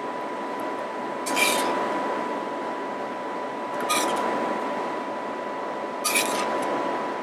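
A metal spoon scraping sauce out of a metal pan three times: about a second and a half in, near four seconds and about six seconds in. Underneath runs a steady fan hiss.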